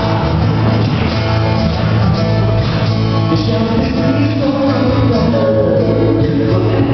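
A live song played on acoustic guitar and a second guitar, with singing.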